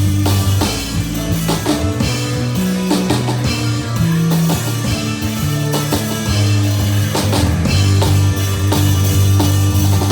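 Live rock band playing: drum kit beating steadily under held bass notes that step from one pitch to the next, with guitar over the top.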